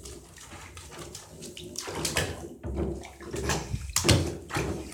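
Bathwater splashing and sloshing in a tub as a small puppy is washed and moves about in the water, in several uneven splashes.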